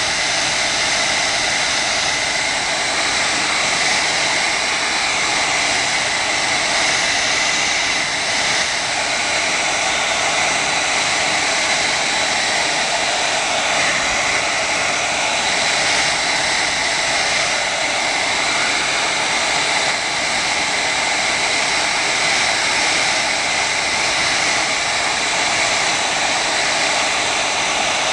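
Handheld blow dryer running steadily at close range: a loud, even rush of air with a steady whine in it, heating the phone's glass to soften the adhesive.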